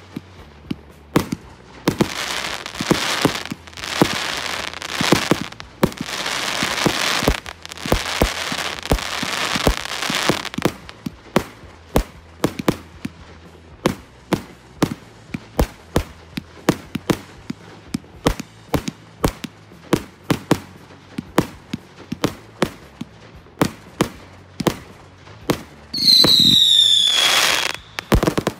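Hallmark Fireworks Bad Blood 68-shot barrage firing in quick succession: a long run of sharp bangs from shots and bursts, with a denser rushing sound between about two and ten seconds in. Near the end the fanned whistle tubes give a loud whistle of about two seconds, falling slightly in pitch.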